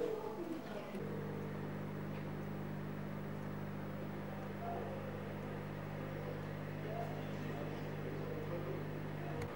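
A steady low machine hum that starts suddenly about a second in and runs on evenly.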